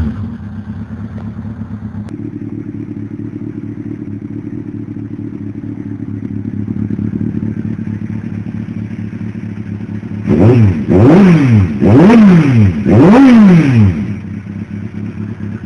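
Kawasaki Z750S inline-four motorcycle engine idling, first briefly through the mostly gutted stock muffler and then through a Two Brothers M2 carbon fiber exhaust. About ten seconds in it is blipped four times in quick succession, each rev rising and falling back, before settling back to a steady idle.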